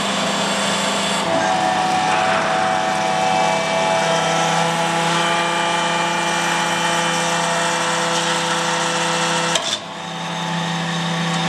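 Hydraulic pump and motor of a 25-ton forging press running with a steady whine under load as the ram upsets a hot steel billet. The tone shifts a couple of times as the pressing goes on. Near the end there is a sharp click and a brief dip, after which the whine builds again.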